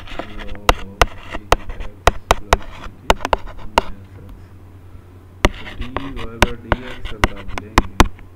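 Sharp, irregular clicks, two or three a second, from a computer mouse button pressed and released stroke by stroke as handwriting is drawn on screen, over a steady low electrical hum.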